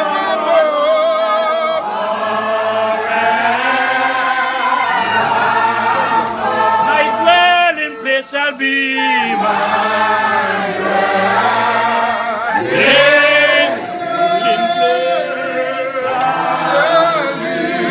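Church congregation singing a hymn together, many voices at once with a wavering vibrato.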